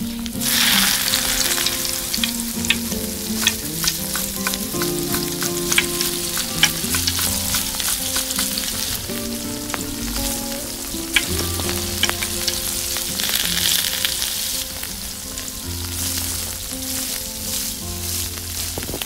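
Chopped vegetables hitting hot oil in a miniature steel kadai, sizzling loudly about half a second in and then frying steadily. A tiny metal spoon stirs and clicks against the pan throughout, and the sizzle swells again a little past halfway.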